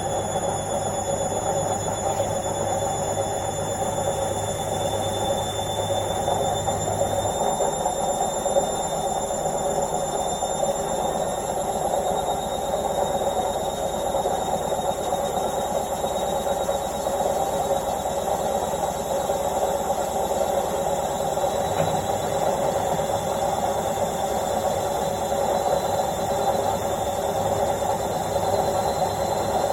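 Indesit washing machine on a loud and fast spin cycle: a steady whirring rumble with a thin, high whine that creeps slowly upward in pitch. A low hum underneath drops away about seven seconds in.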